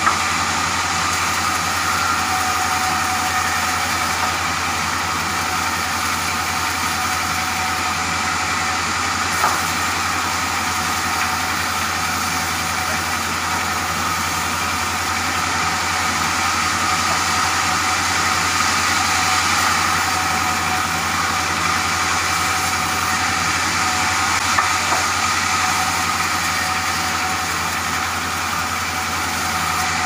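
Band sawmill running steadily, its drive hum and blade noise constant while timber is sawn, with a few light knocks about a third of the way in and near the end.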